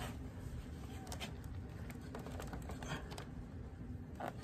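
Scattered light clicks and taps of a plastic grille being worked by hand into a Camaro's front bumper cover.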